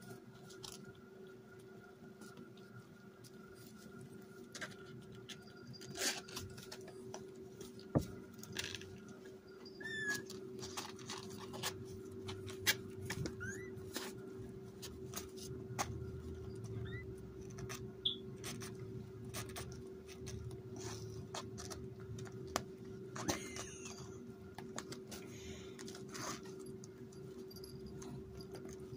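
Eighteen-day-old kittens scrabbling and clawing about on pee pads and fabric playpen walls, with a few brief, high squeaky mews in the middle, over a steady low hum.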